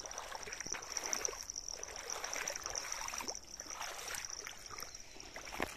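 Shallow muddy floodwater running across a dirt road after heavy rain: a soft, steady rush of water, over a steady high-pitched drone.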